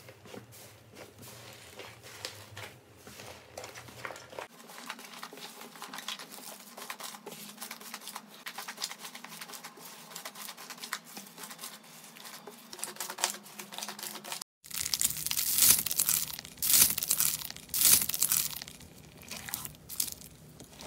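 Hands squeezing and stretching slime, giving sticky crackles and clicks. After a brief break about two-thirds of the way in, it gives way to much louder crunching and popping as a hand presses into slime mixed with foam beads.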